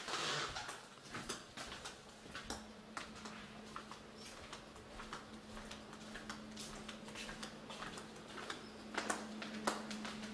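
Footsteps tapping along a hard floor in a series of irregular short clicks, over a steady low hum, with a louder noisy rustle right at the start.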